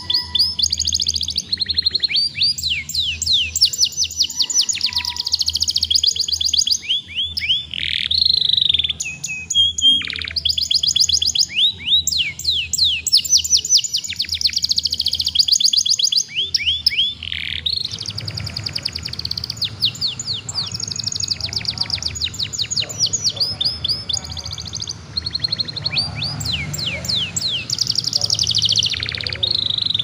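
Young domestic canary singing a long, vigorous song of rapid trills and quickly repeated falling chirps, broken only by a few short pauses.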